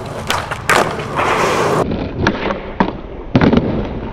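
Skateboard pops and landings on asphalt: several sharp wooden clacks of the tail and trucks hitting the ground, the loudest pair about three and a half seconds in, with the hard rush of the wheels rolling between them.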